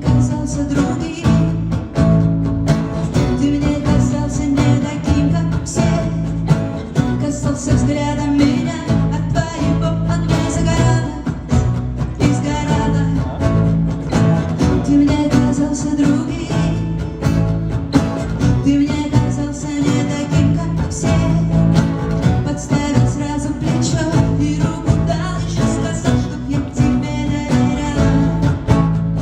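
Live pop song played by a band, with guitar, a steady bass line and a lead vocal.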